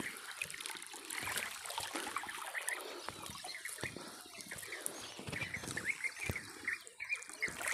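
Water trickling and splashing, with small clicks, as a fishing net is lifted and handled in the water. Short high chirps come and go in the background, more of them in the second half.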